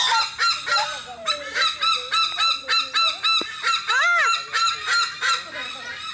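A bird giving a rapid run of short, laugh-like calls, about three a second, with one longer rising-and-falling call about four seconds in; the calls thin out near the end.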